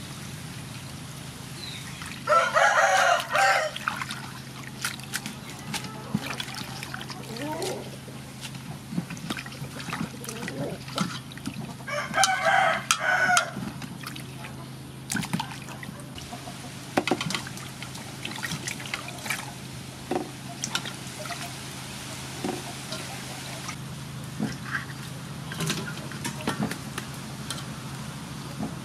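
A rooster crows twice, loudly, about two seconds in and again about twelve seconds in. Between and around the crows, water is poured and splashes and sloshes as vegetables are washed by hand in a metal basin.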